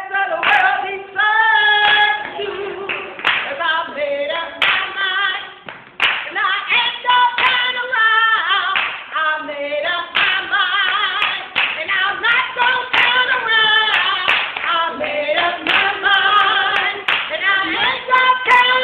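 A man singing a gospel song unaccompanied, with people clapping along in time and joining in.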